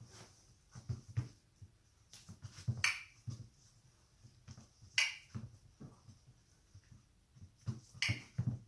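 Three sharp clicks, a couple of seconds apart, amid soft low knocks and shuffling in a small room.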